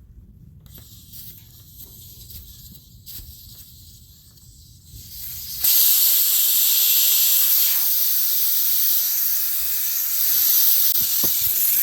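Air hissing out of a tire through its valve stem as the valve core is removed to deflate it. A faint high hiss at first, then about five and a half seconds in it turns suddenly into a loud, steady rush of air.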